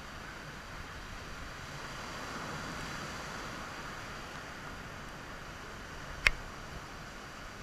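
Small waves of surf breaking and washing up over sand, a steady rushing hiss that swells a little a couple of seconds in. A single sharp click about six seconds in.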